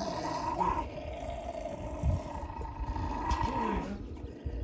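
Jack Russell terriers growling at each other: a steady growl with a few short rises and falls in pitch, easing off near the end.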